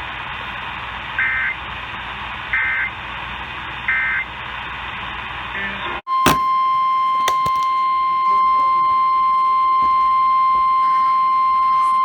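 Radio static carrying three short bursts of warbling two-pitch digital data tone, about 1.4 seconds apart: the Emergency Alert System end-of-message code closing a flash flood warning. About halfway through the static cuts off abruptly, and a steady, single-pitch weather-radio alert tone starts and holds for the rest.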